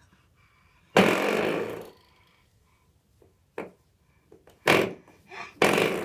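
A spring door stopper is flicked and springs back with a buzzy twang about four times. The first, about a second in, is the loudest and longest.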